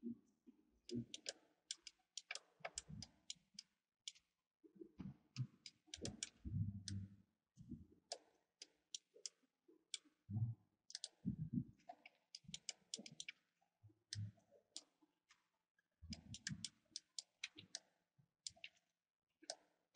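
Faint computer mouse and keyboard clicks, coming in quick clusters of several clicks with short pauses between them, mixed with soft low knocks.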